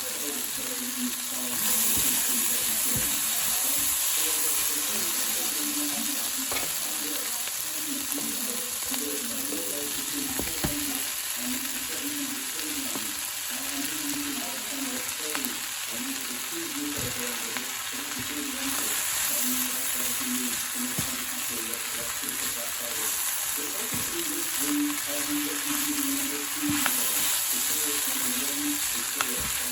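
Food sizzling in a hot pan as it is stir-fried for fried rice. A steady hiss of frying runs throughout, with scattered light clicks and scrapes from the stirring.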